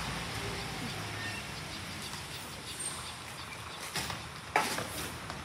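Outdoor street ambience with a refuse truck's engine running low, fading after about a second, and faint bird chirps. Near the end come a couple of sharp knocks as wheelie bins are handled at the truck.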